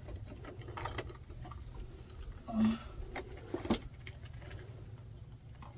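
Electrical wires being handled and tugged inside an inverter's wiring compartment: light clicks and rustles over a steady low hum.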